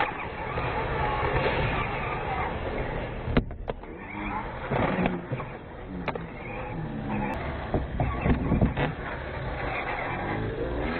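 Radio-controlled quad's motor and tyres running as it lands and tumbles on the ramps, with sharp knocks of the model striking the wood and steel. The loudest two knocks come about three and a half seconds in, and a few more follow later.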